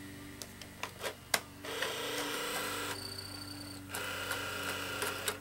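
Sony Betamovie camcorder's tape mechanism at work: a few sharp clicks, then two spells of whirring motor noise a couple of seconds long with a short break between them, and more clicks near the end. Under it runs a steady low hum.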